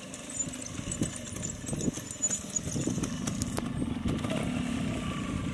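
Classic trials motorcycle engine running, getting gradually louder.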